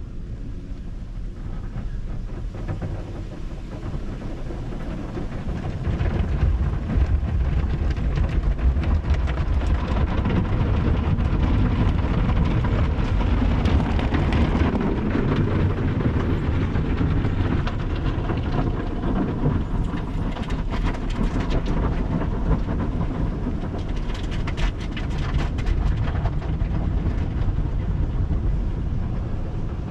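Automatic tunnel car wash heard from inside the vehicle's cabin: cloth wash brushes slapping and rubbing across the windshield and side windows, with water spray drumming on the body over a deep rumble. It gets louder about six seconds in.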